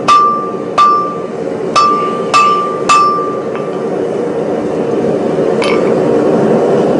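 Hand hammer striking a glowing 4140 steel hammer-head blank on the anvil, knocking its corners down: five blows in about three seconds, each with a short high ring. The blows then stop, leaving a steady low hum.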